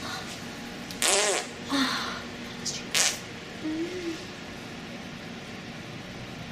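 Fart sound effects: a short loud burst about a second in, then shorter bursts about two and three seconds in, and a brief pitched glide near four seconds.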